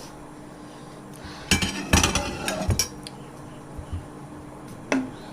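Plates and cutlery clattering together for about a second and a half, then a single sharp clink near the end.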